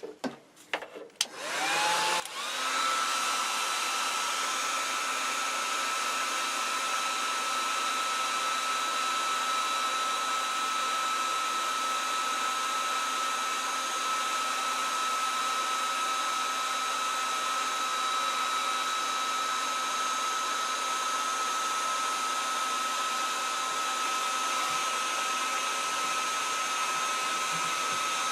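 Electric hot-air blower switched on with a few clicks. Its fan motor whines up to speed about two seconds in, then blows steadily with a constant whine. It is heating heat-shrink tubing over soldered small wires.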